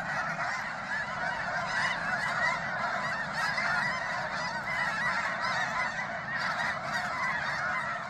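A huge flock of snow geese calling at once: a steady, unbroken chorus of many overlapping high honks.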